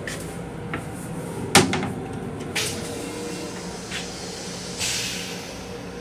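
Steady hum of an M7 railcar heard from inside its small restroom, with one sharp knock about one and a half seconds in and a couple of short hisses a second and two seconds later.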